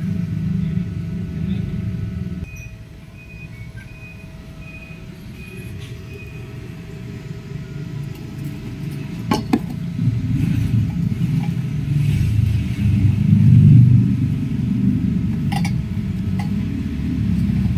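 A low rumble with a faint steady hum, and two sharp metal clinks about six seconds apart, of tools knocking on the galvanized steel pipe.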